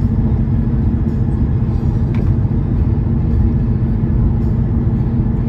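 Steady low rumble of road and engine noise from inside a moving car.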